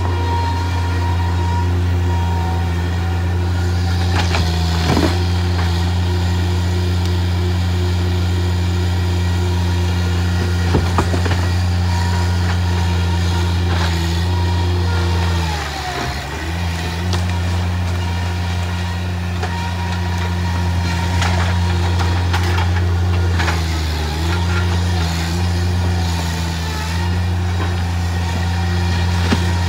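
Skid-steer loader with a grapple running steadily, its engine drone and a higher whine dipping in pitch for a moment about halfway through as it takes load. A few knocks of debris being grabbed and moved come through over it.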